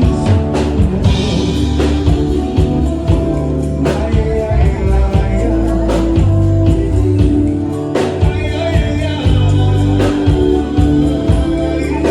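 Bolero song: singing over guitar accompaniment, with a steady bass and beat.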